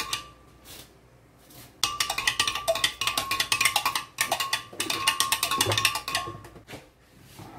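A spoon stirring inside a glass blender jar, clinking rapidly against the glass with a ringing note. The clinking stops for about a second near the start, then runs on until just before the end.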